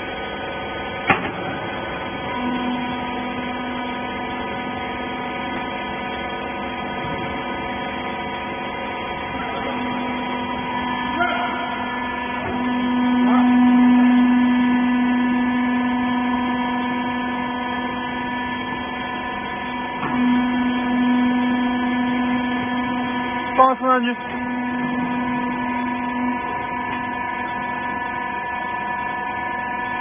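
Hydraulic power pack of a wiper baler running with a steady hum, one strong low tone with fainter higher tones above it. It grows louder for a few seconds around the middle, and a few short clicks and knocks come through.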